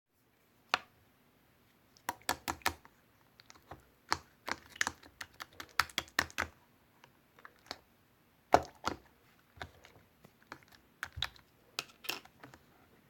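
Irregular sharp clicks and taps, several in quick runs with short gaps between, the loudest about eight and a half seconds in.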